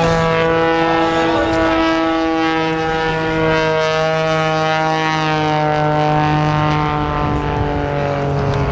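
Christen Eagle aerobatic biplane's piston engine and propeller droning steadily in flight as it passes, its pitch sinking a little through the middle.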